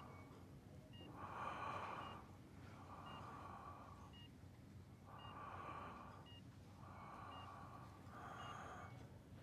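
Slow, rasping breaths of a dying hospital patient on nasal oxygen, a breath about every second and a half. Short high beeps from a bedside patient monitor repeat alongside them.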